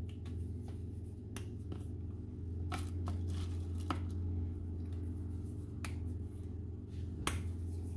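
Hands patting and pressing small balls of flour-tortilla dough flat between the palms and setting them down in a plastic-lined container: a scattering of soft, irregular slaps and taps over a steady low hum.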